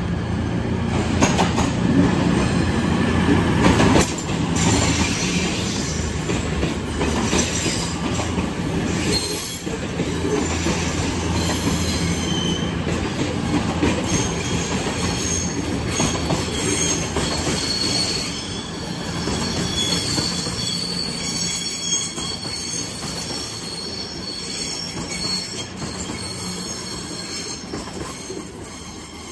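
CrossCountry Voyager diesel multiple unit passing close by, its underfloor diesel engines running, with high-pitched wheel squeal from the curved track in the second half. The sound eases as the train draws away near the end.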